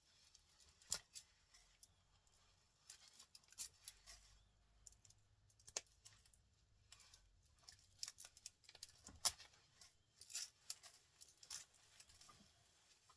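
Irregular snips, clicks and short scrapes of hand tools cutting and pulling apart a small electric motor from a printer to get at its fine copper wire.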